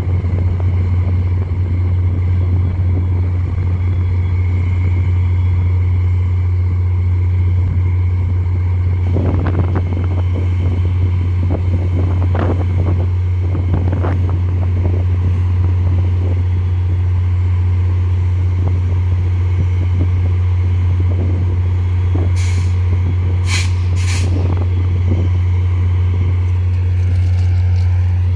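A diesel passenger train running while standing, with a steady low hum throughout. A few thuds come about ten to fourteen seconds in, and three short, sharp air-brake hisses come a little over twenty seconds in.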